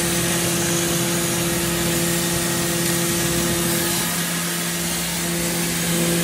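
Limestone grinding machine running steadily: an even hum with a rushing noise over it.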